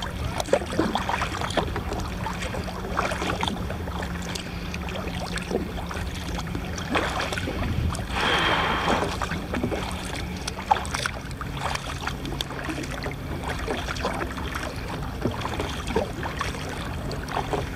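Water lapping and splashing against a kayak's hull out on the sea, with a steady low hum underneath and a louder rush about eight seconds in.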